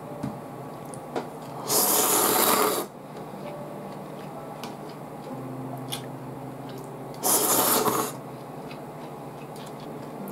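A person slurping cold ramen noodles in two long, loud slurps, one about two seconds in and one about seven seconds in, over a low steady hum.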